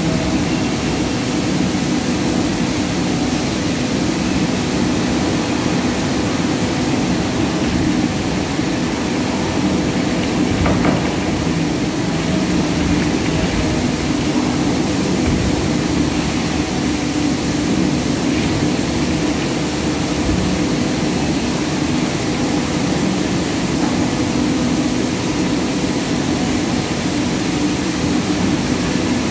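Palm oil mill machinery running, including a large screw conveyor turning in its trough: a loud, steady industrial drone with a low hum. There is one small knock about eleven seconds in.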